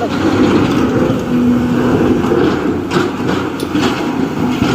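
Heavy diesel engine of working construction machinery running steadily, with a short steady tone standing out about a second in.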